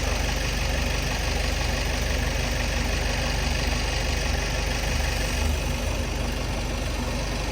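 Diesel engine of a GAZelle Next van idling steadily.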